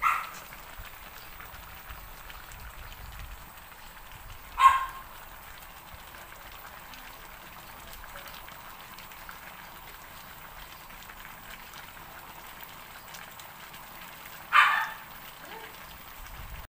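Crabs and prawns sizzling in sauce in a metal wok, a steady crackling patter. Three short, sharp, louder sounds come through it: one at the start, one about five seconds in and one near the end.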